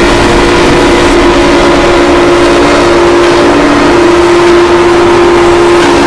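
Emergency alert (EAS) alarm boosted until it is harshly distorted: one steady droning tone buried in loud static-like noise, with no pauses.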